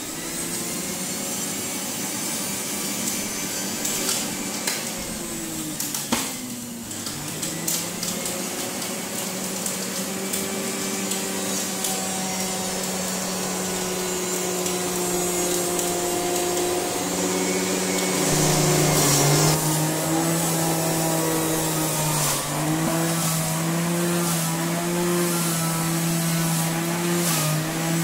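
Electric juicer running, its motor whirring steadily as carrots are pushed down the chute and shredded. The motor's pitch drops and shifts several times as the load changes.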